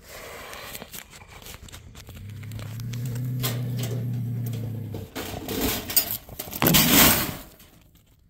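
Bobcat growling low and steadily inside a wire cage trap, with clicks and metal rattles from the trap's wire mesh and door. About seven seconds in comes a loud, harsh rattling rush, the loudest part, as the door opens and the bobcat bolts out of the trap.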